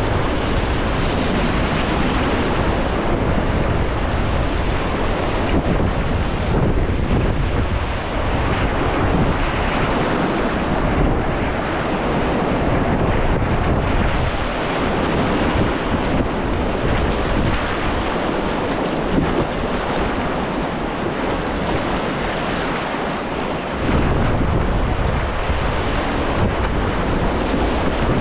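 Whitewater of a river rapid running at about 1450 cubic feet per second, rushing steadily around a kayak, with wind buffeting the microphone. The low rumble thins out for several seconds and comes back suddenly near the end.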